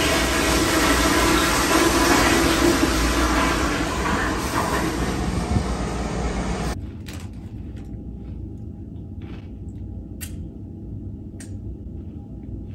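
Toilet flushing in a tiled restroom: a loud rush of water that slowly tails off, then cuts off suddenly about seven seconds in to quieter room tone with a few faint clicks.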